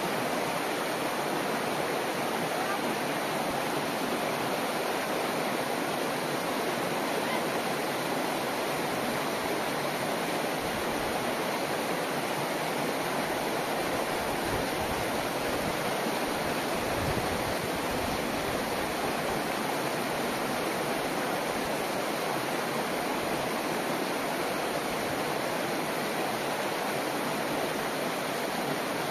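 Shallow mountain stream rushing and splashing down a channel of bare rock, a steady, even sound of running water. A low rumble joins it for several seconds in the middle.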